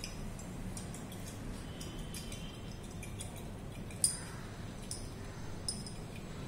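Faint clinks and ticks of glassware as a conical flask is swirled by hand under a burette while titrant is added drop by drop, with one sharper clink about four seconds in, over a low steady hum.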